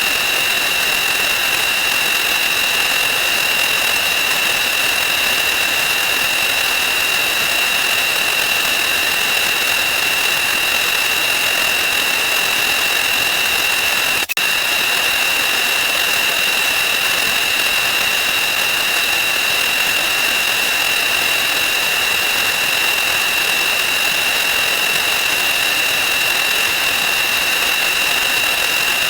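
Counting sound effects sped up 4,096 times, merged into one loud, steady electronic buzz with a constant high-pitched tone. It drops out for a split second about 14 seconds in.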